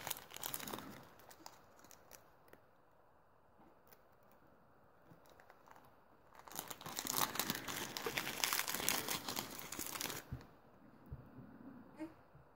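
Small plastic packaging bag crinkling and tearing as it is worked open by hand: a brief crinkle at the start, then about four seconds of steady crinkling and tearing from around halfway in, and a few soft rustles near the end.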